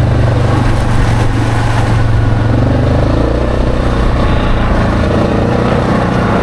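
ATV engine running steadily under way on a gravel trail, with tyre and trail noise. Its low note drops a little about halfway through.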